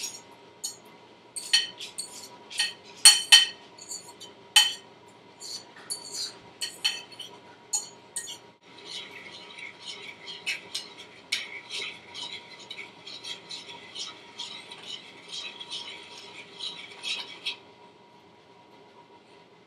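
A spoon or whisk clinking against a mixing bowl while batter is mixed. There are scattered sharp clinks at first, then from about nine seconds a quicker, steady run of taps that stops about two seconds before the end.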